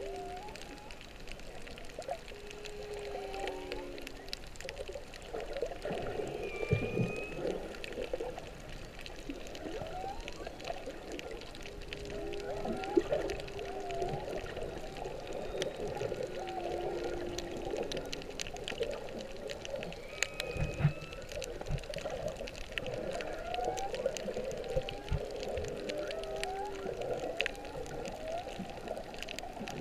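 Humpback whale song picked up underwater: a continuous run of long level moans, short rising and falling whoops and an occasional higher squeal, over a fine crackle of clicks.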